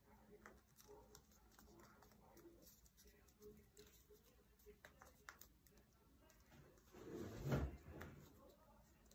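Faint rustles and small clicks of origami paper being creased and pinched by hand, with one louder rustle lasting about a second, starting about seven seconds in.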